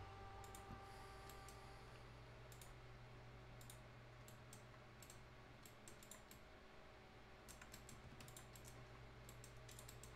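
Faint, irregular clicking of a computer keyboard and mouse over a low steady hum.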